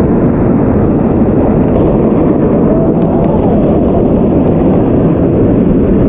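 Waterfall pouring down right onto and around the camera: a loud, steady, deep rushing noise with no breaks.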